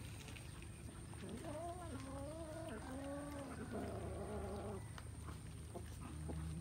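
Cat meowing: several drawn-out meows in a row from about a second and a half in until nearly five seconds, over a low steady hum.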